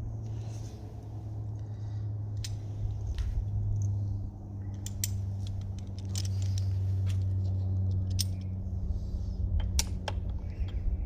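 Scattered small metal clinks and taps of bolts and stem parts being handled and fitted, over a steady low hum.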